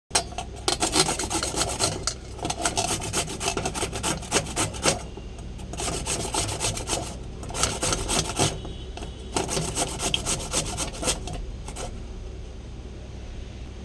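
Bottle gourd being grated on a hand grater: quick rasping strokes in three bursts, the last stopping about eleven seconds in.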